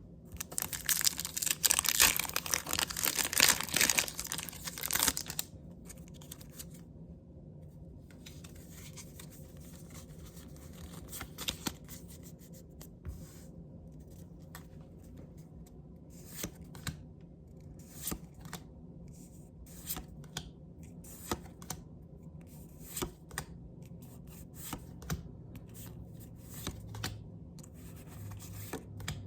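Foil wrapper of a Pokémon card booster pack torn open with crinkling for the first five seconds or so. After that come the softer scattered flicks and slides of trading cards being handled one at a time.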